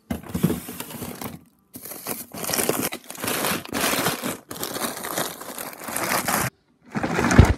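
Plastic bags of frozen peas crinkling and rustling as they are packed into a freezer drawer by hand, in several bursts of a second or two, with a louder thump near the end.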